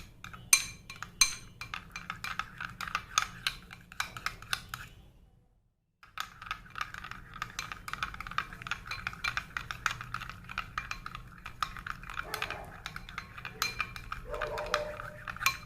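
Spoon stirring glue and baking powder in a glass bowl: a quick run of clicks and clinks against the glass. The sound briefly cuts out about five seconds in, then the stirring resumes.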